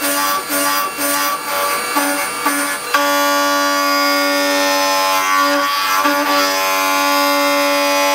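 Indexable-insert face mill on a CNC milling machine cutting steel: a pitched whine with overtones that holds one pitch. It pulses about twice a second at first, then after a sharp onset about three seconds in it runs continuously under full cut.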